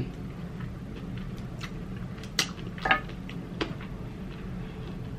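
Faint wet mouth clicks and smacks of someone chewing chicken wing with closed lips, a few sharper ones around the middle, over a steady low hum.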